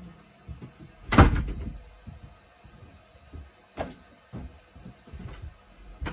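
A loud sharp bang about a second in, then a few lighter knocks and bumps.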